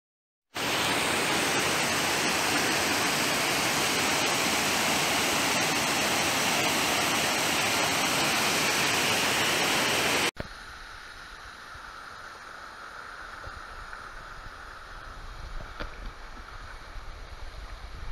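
Waterfall rushing, a loud steady noise of falling water. About ten seconds in it cuts abruptly to a much quieter, duller rush with a low rumble.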